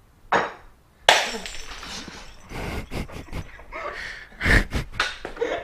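A glass bottle smashing on a concrete floor about a second in, followed by several seconds of irregular clinking and scraping as the broken glass scatters.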